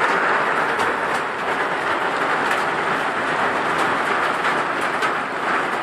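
Heavy rain falling in a steady downpour, a dense even hiss with scattered sharper drop ticks.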